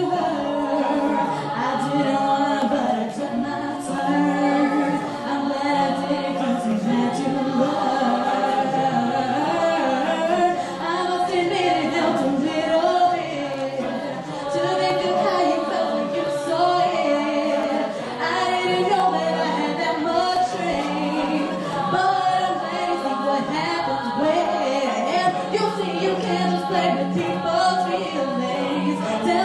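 A mixed-voice Hindi fusion a cappella group singing in harmony, with a sustained low sung bass line under the moving upper voices.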